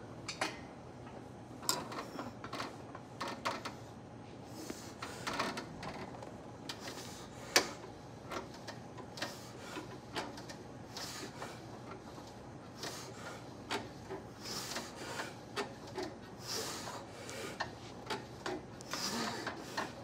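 Scattered light clicks, knocks and rubbing from a plate-loaded chest press machine being worked, with one sharper click about seven and a half seconds in.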